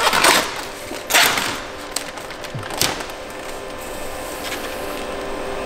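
Clear plastic laminating film crinkling and rustling as it is pulled and handled at a roll laminator, in a few short bursts. The loudest come near the start and about a second in, over a faint steady hum.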